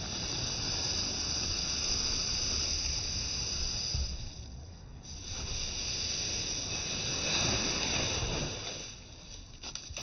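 Stiff bristles of a snow brush sweeping snow across a car roof: a hissing scrape in two long strokes, easing off briefly in the middle and again near the end.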